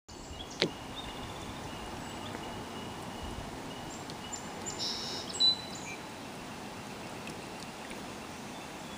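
Small birds chirping and trilling over a steady rush of flowing river water. There is a sharp click about half a second in, and a louder bird call just after the middle.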